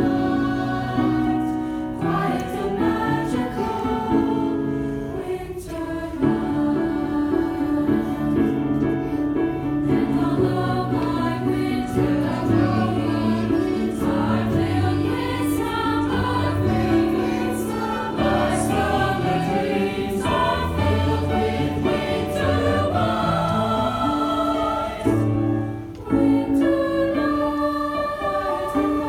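High school choir singing a song in several parts, with sustained chords and notes that change in steps.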